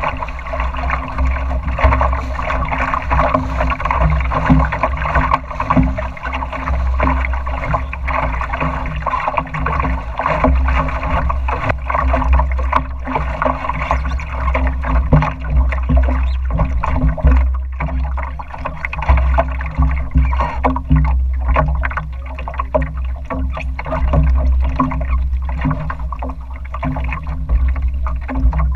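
Water splashing and lapping steadily against the hull of a small sailing dory, with a deep rumble of wind on the microphone and irregular short splashes throughout.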